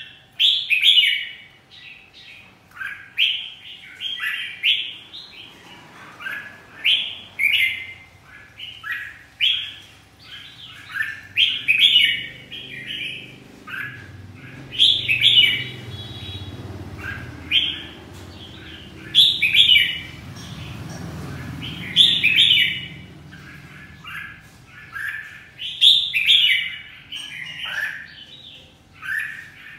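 Caged red-whiskered bulbul singing: short, bright warbled phrases repeated every second or two.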